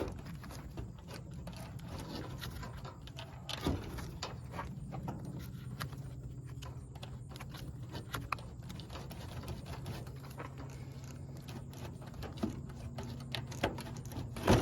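Scattered metallic clicks and knocks of a wrench working a tight, corroded battery terminal loose from its post, over a steady low hum.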